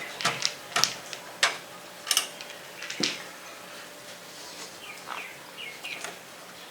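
Irregular sharp clicks and knocks of hands handling parts and cables inside a desktop PC case, about half a dozen in the first three seconds, then quieter.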